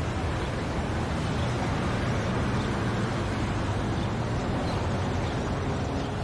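A steady low rumble under an even hiss.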